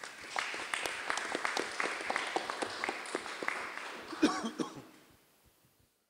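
Audience applauding, a dense patter of claps that fades out about five seconds in. A short vocal sound about four seconds in is the loudest moment.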